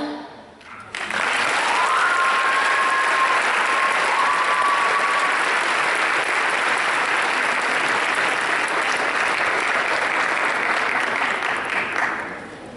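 Audience applauding, starting about a second in once the dance music has stopped and holding steady, with a couple of long high calls from the crowd over it a few seconds in; the clapping fades out near the end.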